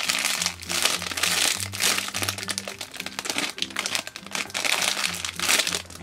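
Clear plastic packaging bag crinkling and rustling repeatedly as a squishy toy is squeezed and turned inside it, over background music with a steady bass line.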